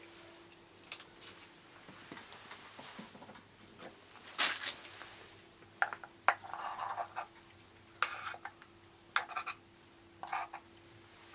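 Scattered short clicks, clinks and scrapes at irregular intervals, with a longer rustle about six and a half seconds in, like bowls or dishes being handled and scraped.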